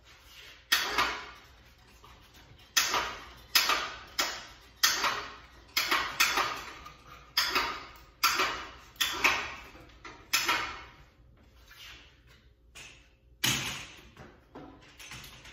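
About a dozen separate clunks and rattles, each sudden and dying away quickly, with a lull near the end: a recumbent trike's frame and wheels knocking as it is handled on the hoist and settled onto a walker-and-tripod workstand.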